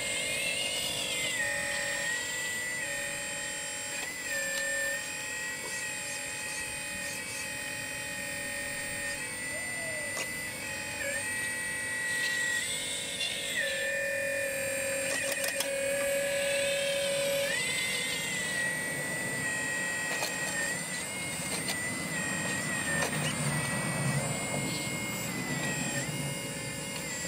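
Scale RC model CAT 6015B excavator running its hydraulics: a steady motor-driven pump whine that steps up and down in pitch every few seconds as the arm and bucket are worked. Near the end rubble rattles under the digging bucket.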